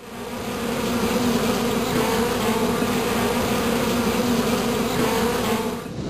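A dense cluster of bees buzzing: a steady, full hum with a low drone, fading in over the first second.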